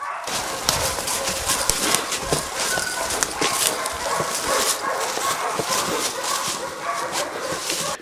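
Hunters crashing through dense woodland undergrowth: leaves rustling and many twigs snapping, with hunting dogs barking in the brush. The noise starts and stops abruptly.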